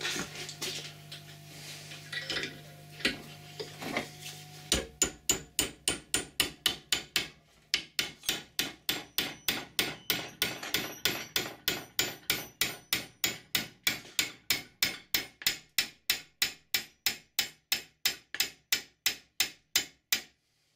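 Small hammer tapping a pin into the drilled hole of a metal yoke on a homemade lathe ball-turning attachment, evenly at about three to four light blows a second. The blows start about five seconds in, after a few scattered metal clinks. The pin is a snug fit.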